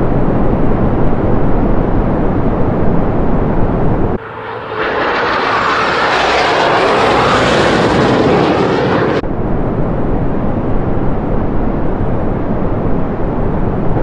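F-15 fighter jets flying in formation: a loud, steady rush of jet engine noise. About four seconds in it changes abruptly to a brighter, hissier sound for around five seconds, then drops back to the deeper rush.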